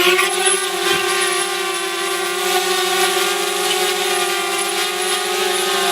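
DJI Spark mini drone's four propellers and motors running steadily in a hover just after a FaceAware palm launch, making a steady whine.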